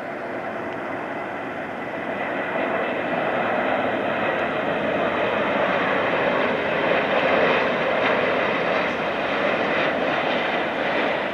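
Jet engines of a four-engine Boeing 747 freighter on final approach, a steady rushing roar with a faint whine that swells louder from about two seconds in as the aircraft comes closer.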